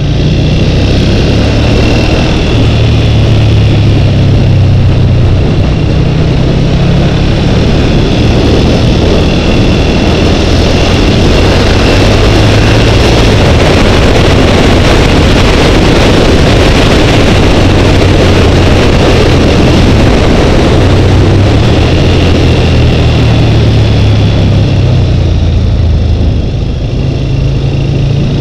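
Twin-cylinder motorcycle engine running steadily while riding on the road, with heavy wind rush over a helmet-mounted microphone.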